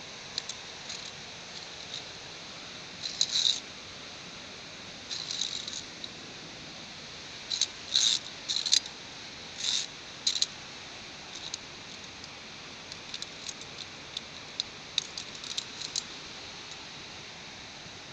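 Via ferrata carabiners clinking and scraping along the steel safety cable in irregular short bursts, over a steady background hiss.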